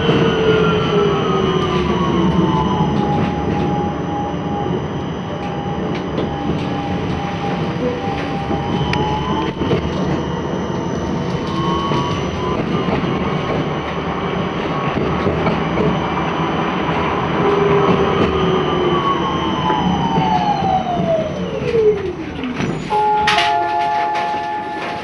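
Electric tram running on street track, heard from inside: the whine of its traction motors glides down and up in pitch with speed over a steady rumble of the wheels on the rails. Near the end the whine falls sharply as the tram slows, and a steady tone sounds for a couple of seconds.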